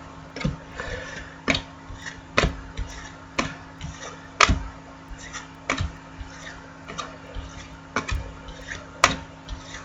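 Football trading cards being flipped through one by one, giving short sharp snaps and clicks about once a second over a faint steady hum.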